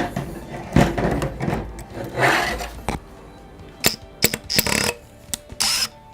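A deer shed antler being handled and fitted onto a screw in a replica deer skull: irregular knocks, clicks and scraping rubs, over background music.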